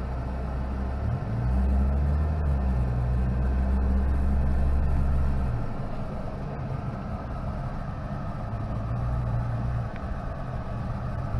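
Mitsubishi Pajero Mini's 660 cc four-cylinder engine and aftermarket performance muffler, heard from inside the cabin, droning steadily while the little SUV drives in four-wheel-drive low range. The engine note grows louder about a second and a half in and eases back about five seconds in.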